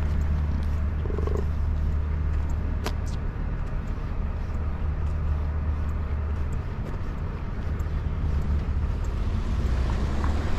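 Wind buffeting the microphone as a steady low rumble, with one sharp click about three seconds in.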